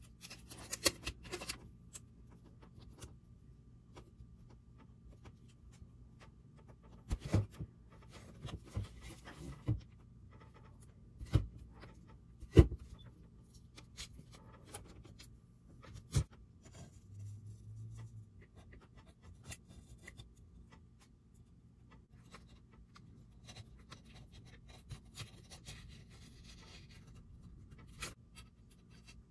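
Sticker sheet and backing paper being handled and peeled: quiet scattered rustling and crinkling, with a few sharp taps, the loudest about twelve seconds in.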